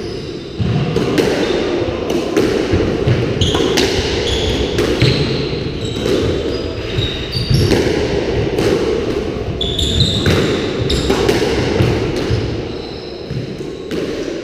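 Squash rally: the ball struck by racquets and smacking off the court walls again and again, each hit echoing in the court, with shoes squeaking on the wooden floor. The hits thin out about 12 seconds in as the rally ends.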